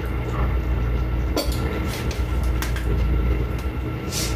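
Steady low droning hum filling the room, with a few light clicks and knocks, one about a second and a half in, one past two and a half seconds, and a sharper one near the end.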